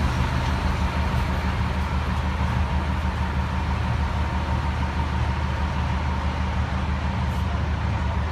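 Fire department ladder truck's diesel engine idling steadily at close range.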